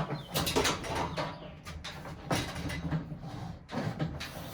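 Irregular clatters, knocks and scrapes from the metal parts of a gas patio heater being handled and adjusted by hand.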